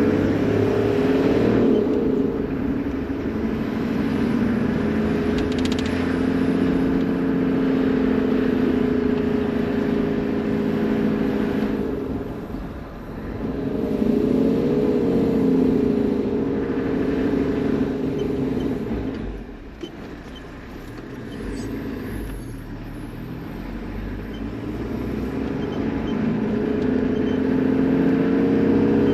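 Toyota Land Cruiser HZJ78 Troopy's 4.2-litre straight-six diesel running as the vehicle drives slowly, its note rising and falling with speed and gear changes. The engine sound drops away twice, about 13 and 20 seconds in, before building again.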